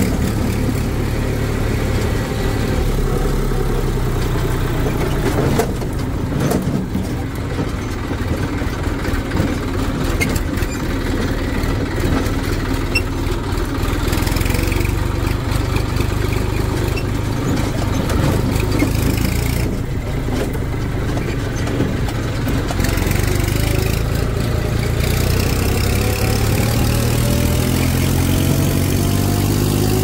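A red farm tractor's diesel engine running under way, heard from the driver's seat, with a steady low drone and rattling over the rough track. Near the end the engine speeds up, its pitch rising steadily.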